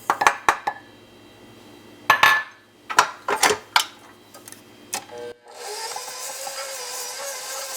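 A few knocks and clicks, then about five and a half seconds in an electric mixer starts and runs steadily, creaming butter and sugar in a mixing bowl.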